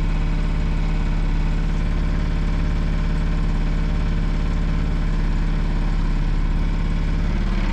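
Mercury 6 hp auxiliary outboard motor running steadily, pushing the boat along: a steady, noisy engine drone.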